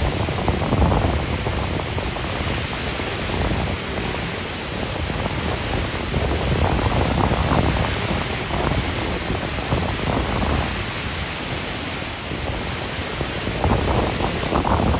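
Category 4 hurricane wind and rain against a parked car: a steady rushing noise that swells in gusts, near the start, around the middle and again near the end.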